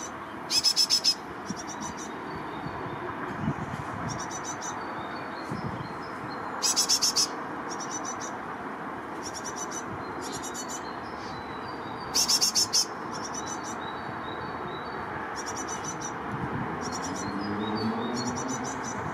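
Great tits calling: three loud bursts of quick, very high chirps about six seconds apart, with fainter high chirping between them, over a steady low background rush.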